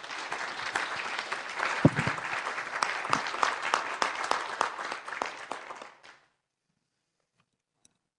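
Seminar audience applauding a speaker's introduction, a dense patter of many hands clapping that stops suddenly about six seconds in.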